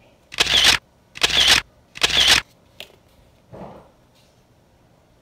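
Camera shutter sound effect snapping three times in a steady rhythm, about 0.8 s apart, followed by a faint click and a soft low rustle.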